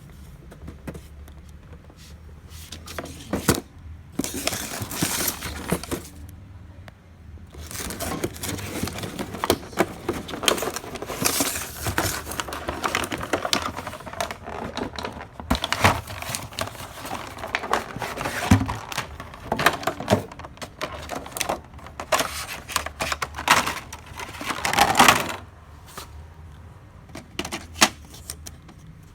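Plastic toner cartridges and printer parts being handled: irregular clicks, knocks and rustling, with a longer rustle about 25 seconds in.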